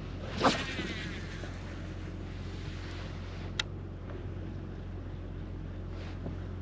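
A cast with a fishing rod and reel: a loud swish about half a second in, followed by a whirring of line running off the reel that fades over about a second. A single sharp click comes about halfway through, over a steady low hum.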